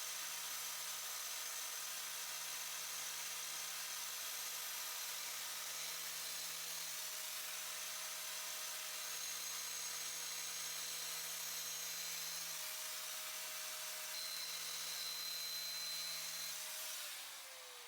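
Electric grinder running steadily with a high whine while the chipper blades are sharpened. Near the end it winds down, its pitch falling as the motor slows.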